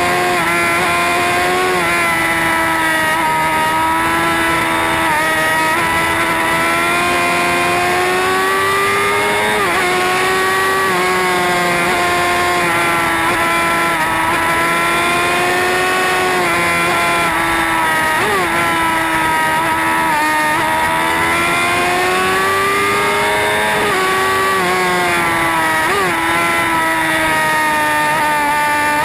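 Sport motorcycle engine running at high revs at speed, with rushing wind noise; the engine pitch rises and falls slowly and dips sharply a few times.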